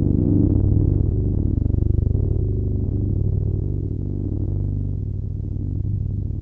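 Bass guitar through a Zoom MS-70CDR's Beautiful Noise effect with its feedback turned up, driving an overdriven Phil Jones Nano X4 amp: a dark, crunchy sustained low drone with a fast flutter, slowly fading.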